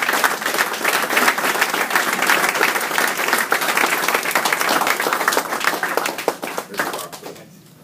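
A small group of people applauding, with dense clapping that fades out near the end.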